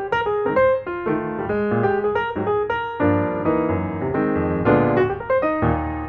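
Background piano music, a run of chords and melody notes.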